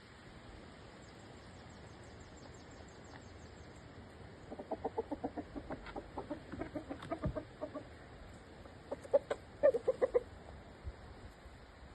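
Chickens clucking: a run of short, rapid clucks starting about four seconds in, then a louder burst of clucks a few seconds later.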